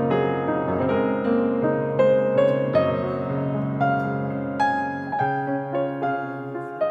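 Background piano music: a calm melody of single notes, each struck and fading.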